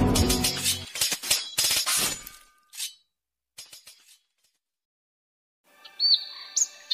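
Electronic intro music fading out with several sharp, glassy clinks and crashes. Then about three seconds of near silence, and birds chirping near the end.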